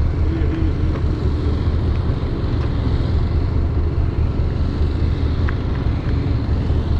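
Fishing boat's engine running at a steady low rumble.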